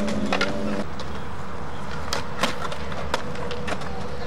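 Skateboard rolling on smooth concrete with a steady low wheel rumble, broken by several sharp clacks of the board's tail popping and the wheels landing.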